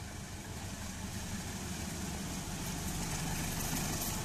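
Diesel-electric locomotive of an approaching passenger train: a steady low engine rumble growing slowly louder as it nears, with a hiss building near the end.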